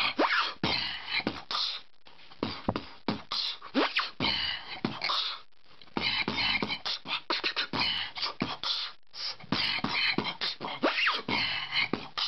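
Solo human beatboxing: a fast run of percussive mouth sounds with a few rising vocal sweeps, pausing briefly three times.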